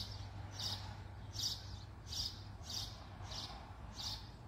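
A bird chirping over and over, a short high chirp about every three-quarters of a second, over a faint low hum.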